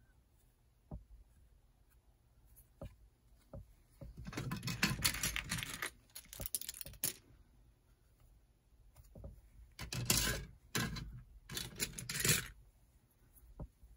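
LEGO items and their packaging being handled: scattered clicks and knocks, with a stretch of rustling and crinkling about four seconds in and another from about ten to twelve seconds.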